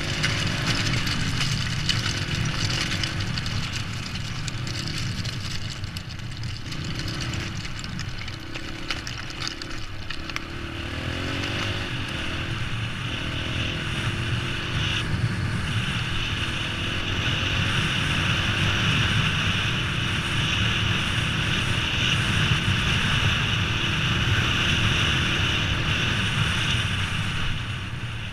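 Dirt bike engine running while riding, its pitch rising and falling with the throttle, under heavy wind noise on the microphone.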